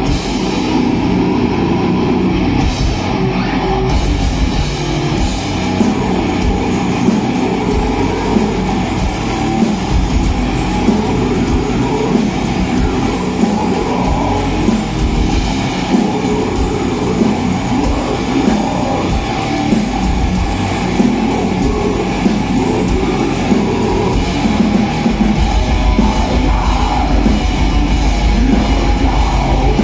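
A heavy metal band playing live: electric guitars, bass and a drum kit with fast, dense drumming. The low end gets heavier about 25 seconds in.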